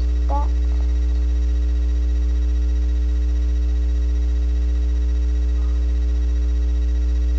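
Steady low electrical hum, the mains hum in the recording, with a few fainter steady tones above it and no change throughout; a brief vocal sound comes just after the start.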